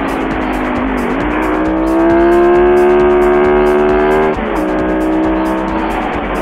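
Ducati 916's L-twin engine under way at speed. It is steady at first, then the throttle opens and the revs climb and grow louder for a few seconds, before the pitch and level drop abruptly and it runs on at lower revs.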